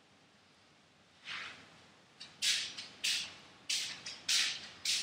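Footsteps of shoes on a tiled floor: short scuffing sounds at a walking pace, about one every 0.6 s, starting a little over a second in and getting louder.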